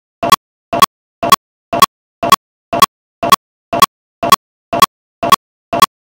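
Regular double ticks, about two pairs a second: each pair is a softer click followed closely by a louder one, with silence in between.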